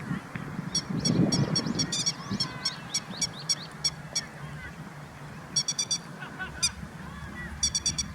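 Grey-headed lapwings giving sharp, repeated calls in quick runs of three or four notes. A low rumble comes in about a second in.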